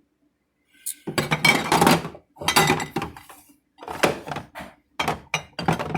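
Condiment bottles and jars being handled and set down on refrigerator shelves. After about a second of quiet comes a run of knocks and clattering in about five bursts.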